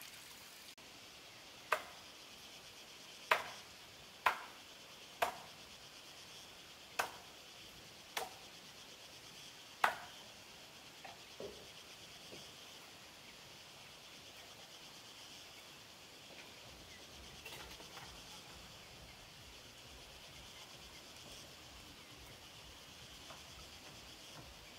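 A series of about seven sharp knocks or chops at uneven intervals, roughly one every one to two seconds, followed by a few fainter ones. A steady high background hiss runs under them.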